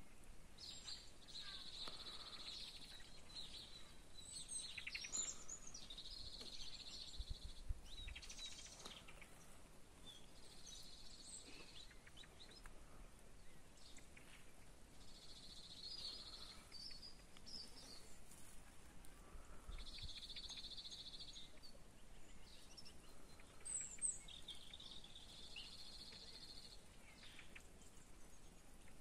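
Faint countryside ambience of birds chirping and whistling, with a buzzy trill that repeats every four or five seconds.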